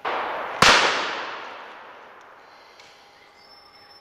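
Two shotgun shots in quick succession, about half a second apart, the second louder, its report dying away slowly through the woods over a second or so.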